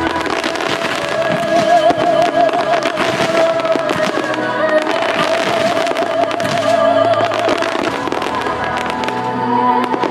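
A fireworks finale barrage: many shells bursting and crackling in quick succession, over music with a wavering held melody.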